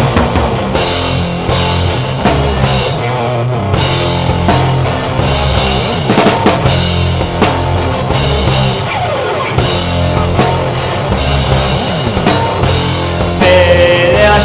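Rock band of drum kit, electric guitar and bass playing an instrumental passage of a song, without vocals.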